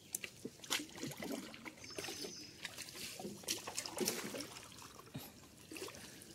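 Water sloshing and splashing in irregular strokes as someone wades through shallow water.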